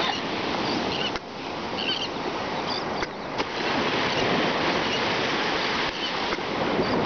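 Steady wash of surf on the beach with wind on the microphone, broken by a couple of light knocks and a few faint high chirps.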